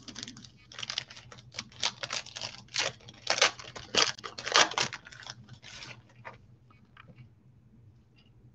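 A 1991 Pro Set football card pack's wrapper being torn open and crinkled by gloved hands, a quick series of tearing rustles for about six seconds, then only faint handling of the cards.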